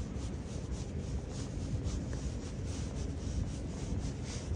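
Rubbing and handling noise from a handheld camera being carried at a walk, with faint regular scuffs about two or three times a second, over a steady low rumble of station ambience.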